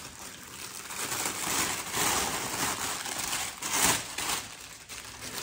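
Packaging crinkling and rustling as it is handled and opened, in irregular bursts that are loudest about two and four seconds in.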